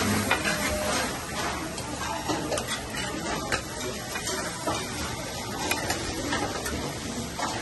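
Spicy chicken and cabbage frying on a large round metal griddle pan while a flat spatula stirs and turns it, the spatula scraping and clinking against the pan over a steady sizzle.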